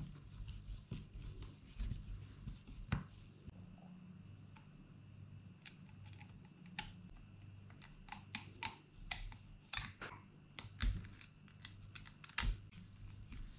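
Irregular clicks and small knocks of hard plastic RC car suspension parts being handled by hand while a front shock absorber is worked loose from a Traxxas Nitro 4-Tec. The clicks come thicker in the second half.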